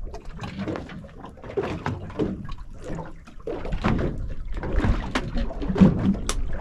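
Water slapping and knocking against the hull of a small boat, in irregular splashes and thumps that grow louder in the second half.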